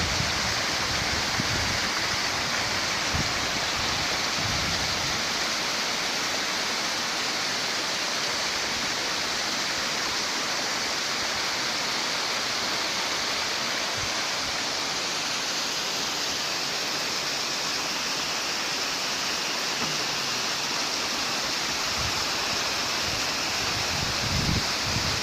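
Waterfall: falling water rushing in a steady, unbroken roar. A few low wind thumps hit the microphone near the start and again near the end.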